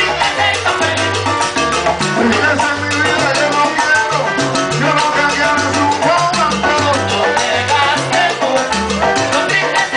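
Live salsa band playing, with a stepping bass line under dense hand percussion and pitched instrument lines.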